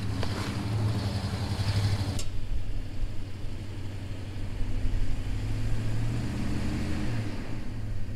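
Vehicle engine running while driving on a dirt road, with a hiss of road or tyre noise that stops abruptly about two seconds in. The engine note lifts a little near the end, then settles back.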